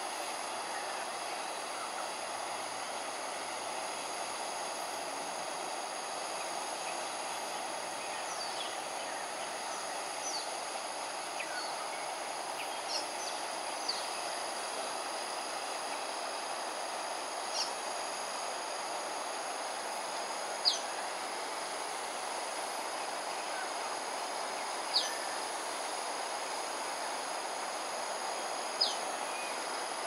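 Outdoor ambience of a steady background hum under a steady high insect drone. From about a quarter of the way in, short high chirps sweep quickly downward every few seconds, the loudest about two-thirds of the way in and near the end.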